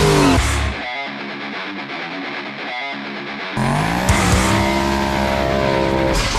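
Drag car engines at full throttle over rock guitar music. About half a second in one engine cuts away, leaving a quieter stretch of music; about three and a half seconds in another engine starts pulling up through the revs, its pitch rising, until it cuts off near the end.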